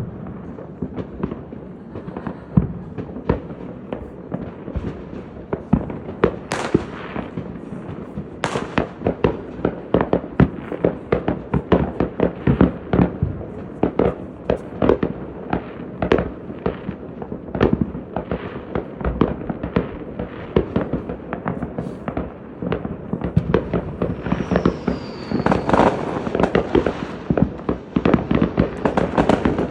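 Fireworks going off in rapid, nearly continuous succession: dense crackling and popping bangs, with a couple of brief rising whistles.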